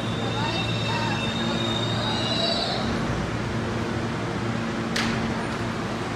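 R160A subway train braking to a stop at the platform: a high steady wheel squeal that fades out about halfway, and a low motor hum that cuts off shortly after. A brief sharp sound comes near the end, as the train stands and its doors open.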